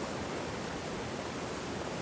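Steady rush of a mountain stream running over boulders.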